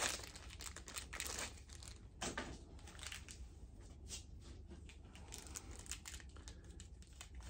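Small plastic and foil first-aid packets rustling and crinkling as they are pulled out of a tightly packed kit and handled, in faint, irregular crackles. There is a louder rustle at the start and another about two seconds in.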